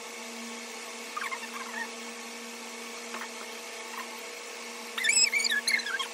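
High, quick chirping calls: a short run about a second in, a few faint single chirps, and a louder run of warbling chirps near the end, over a steady low hum.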